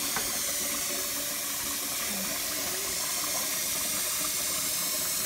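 Kitchen faucet running in a steady stream into a rice cooker's inner pot that holds water, splashing evenly throughout.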